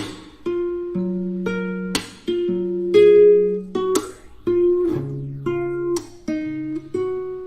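Background music: an acoustic guitar playing plucked chords that ring out and fade, a new chord about every half second to a second.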